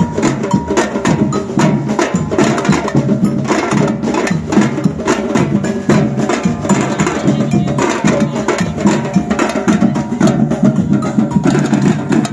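Batucada percussion ensemble playing a fast, steady samba rhythm: deep bass drums under sharp, dense hand-percussion and stick hits. The ensemble stops together at the end.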